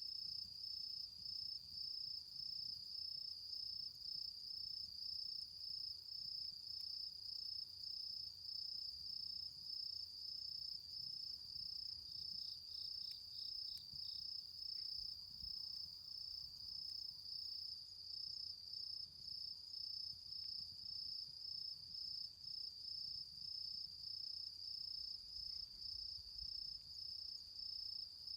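Cricket singing a steady, high, evenly pulsing trill. About twelve seconds in, a second insect adds a brief run of about six slightly lower chirps.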